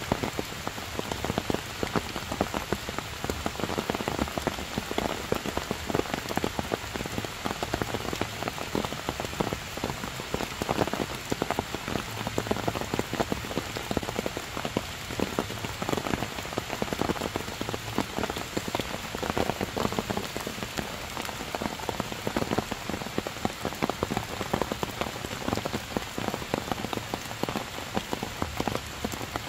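Heavy rain falling steadily, a dense, even spatter of drops hitting leaves and wet stone.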